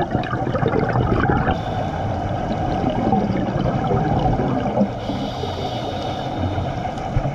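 Underwater ambience picked up by a camera in its housing during a dive: a steady, dense, muffled water rush, mostly low, with a faint higher hiss joining about one and a half seconds in.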